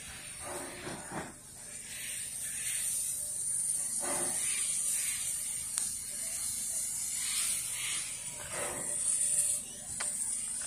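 NGG16 Garratt steam locomotive working slowly at a distance: a steady high hiss of steam with a few soft, widely spaced exhaust beats, about one every four seconds.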